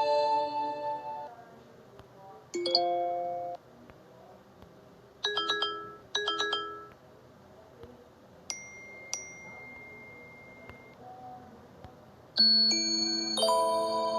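A string of short phone notification tones played one after another with quiet gaps between: bell-like chimes and pings, each about a second long. In the middle come two alike quick chimes back to back, and near the end a longer melodic chime begins.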